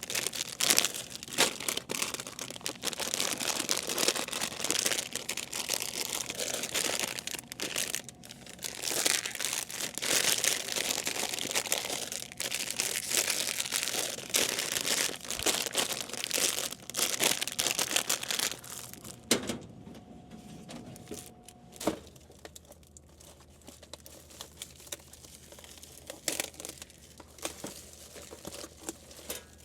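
Plastic snack wrappers crinkling and rustling as packaged snacks are handled and loaded. The crinkling is busy for most of the first two-thirds, then thins out to occasional rustles.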